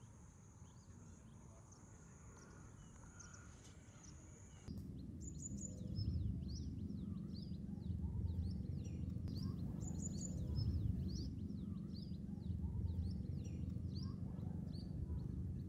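Outdoor rural ambience: the first few seconds are nearly silent apart from a faint steady high tone. About five seconds in, a low steady rumble comes up with many small birds chirping over it in short, quick, falling chirps.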